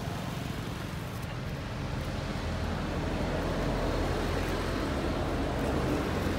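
Steady low rumbling background noise, swelling a little in the middle and easing near the end.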